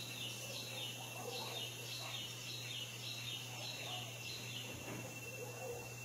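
A bird gives a run of short, high, falling chirps, about three a second, stopping about three-quarters of the way through. A steady high-pitched whine and a low hum run underneath.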